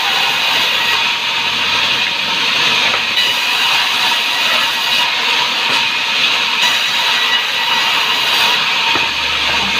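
Sawmill saw cutting through timber: a loud, steady hissing noise that runs without a break.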